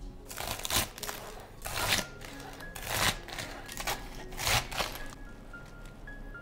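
Chef's knife cutting through crisp romaine lettuce onto a wooden cutting board: four crunchy cuts about a second apart, over soft background music.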